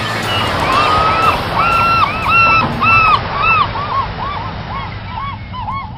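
Birds calling over and over: short calls that rise and fall in pitch, several a second, some overlapping, growing fainter over the last few seconds.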